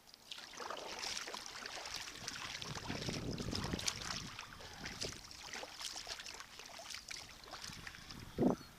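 Sea kayak under way: paddle strokes and water splashing around the boat, with a short, louder thump near the end.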